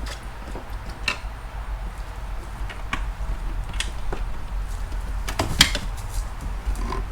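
Handling noises: scattered light knocks and scrapes as glued-down car carpet is worked loose. The loudest pair of knocks comes about five and a half seconds in.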